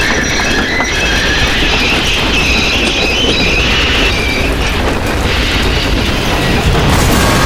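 A loud, steady rumble under a high metallic squeal of several shifting tones: the build-up of a crash sound effect. About seven seconds in, the squeal gives way to a harsher, wider hiss.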